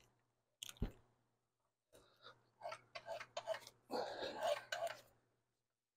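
Faint knocks, clicks and rubbing from a new rubber drive belt being worked by hand onto the CVT clutch pulleys of a Kawasaki Prairie 360. Two light knocks come about a second in, then a run of small clicks and scraping in the second half.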